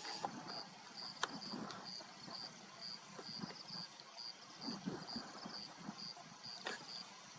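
Male lion chewing on a warthog carcass: irregular crunching bites, with one sharp crack about a second in. A steady high chirp repeats about twice a second behind it.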